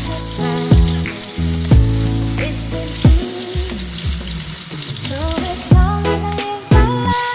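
Food sizzling as it fries in a pan, under background music with a steady beat.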